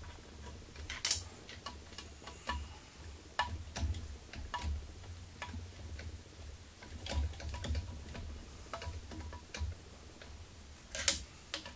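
Irregular light metallic clicks and ticks as screws are turned down by hand into the CNC router's steel Z-axis plate, with a sharper click near the end, over a low steady hum.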